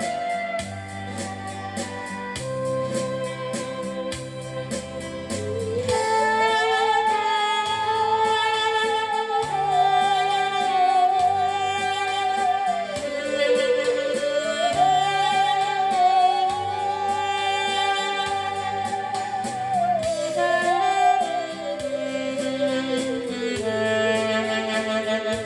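Musical saw playing a slow melody over a backing track of keyboard chords and bass: about six seconds in it slides up into long held notes with a wide vibrato and glides smoothly from note to note.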